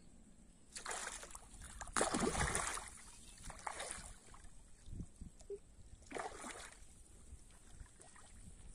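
A hand splashing and sloshing the water at the shallow edge of a pond, in four separate bursts, the loudest about two seconds in.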